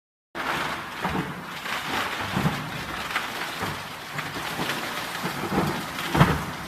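RHONG RG 4680G plastic granulator crushing plastic buckets: a dense clatter of plastic being cut and shattered, with irregular heavy knocks, the loudest about six seconds in. It starts abruptly a third of a second in.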